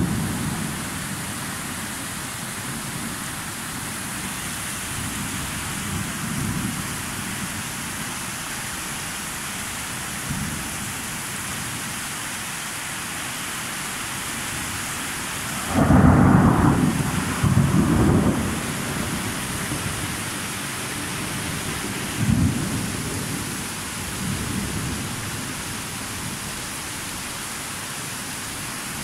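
Steady rain hissing under rolling thunder: a loud peal a little past halfway that rumbles on for about three seconds, a sharper, shorter peal a few seconds after it, and fainter distant rumbles in between.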